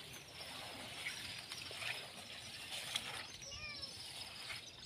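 Cleaning strokes on a wet veranda floor, soft brushing scrapes about once a second. A bird chirps a few quick falling notes about three and a half seconds in.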